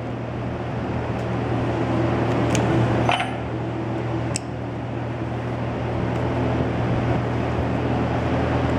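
A steady machine hum that grows slightly louder, with a few sharp clicks about two and a half, three and four and a half seconds in.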